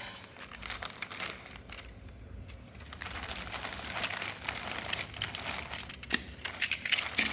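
Plastic courier packaging crinkling and rustling as it is handled and pulled at, with a few sharper clicks near the end.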